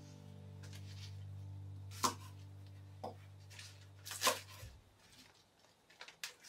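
Chef's knife slicing spring onions on an end-grain wooden cutting board: a handful of separate sharp knife strikes on the board, the loudest about two-thirds of the way through.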